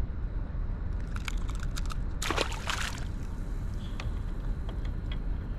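An undersized hammour (grouper) released back into the sea: one short splash about two seconds in, after a few light clicks as it is handled.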